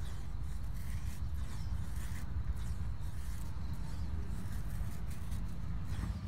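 Scandi-ground bushcraft knife shaving feather-stick curls down a split wooden stick: a series of light scraping strokes over a steady low rumble.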